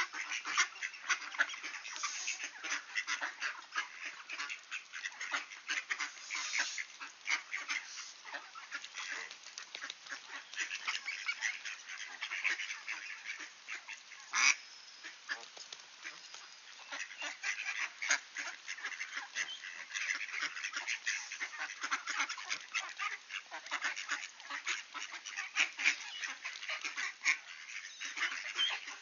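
A group of ducks with ducklings calling without a break in many short, overlapping quacks and calls. A single sharper, louder sound stands out about halfway through.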